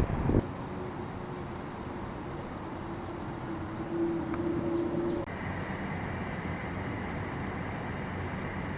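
Street traffic noise with a vehicle's steady hum that cuts off suddenly about five seconds in, after which a higher, thin whine carries on.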